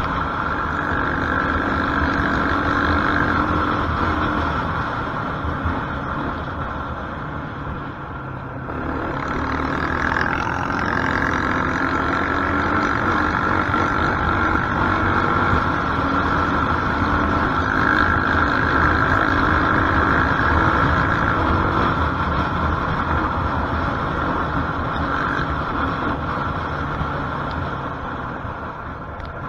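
Quad bike (ATV) engine running under throttle while riding a dirt track, its pitch wavering with the revs; it eases off briefly about eight seconds in and again near the end, then picks back up.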